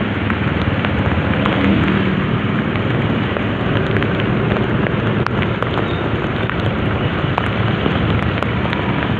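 Heavy rain pouring down while riding a motorcycle, the dense hiss of the downpour mixed with the steady hum of the motorcycle's engine and scattered ticks of drops striking close by.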